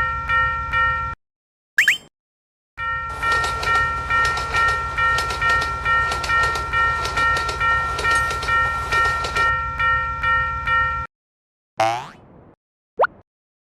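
Japanese level-crossing alarm ringing its clanging 'kan-kan' about twice a second over a steady low rumble, with a train rushing past for several seconds in the middle. The whole sound cuts off suddenly about a second in and again near the end, followed by a few short sliding whistle-like tones.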